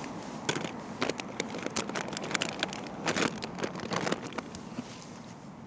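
A quick, irregular run of clicks and rattles from handling and trying cigar lighters that are giving trouble and won't stay lit.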